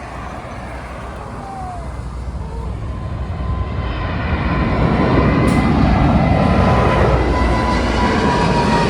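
Jet airliner passing low overhead on its landing approach: engine noise swells over several seconds, then holds loud, with a steady whine that sinks slightly in pitch near the end.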